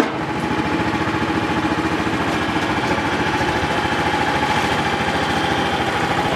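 Munckhof Pluk-O-Trak orchard platform's engine running steadily, with a steady mid-pitched tone over the engine note and a brief click right at the start.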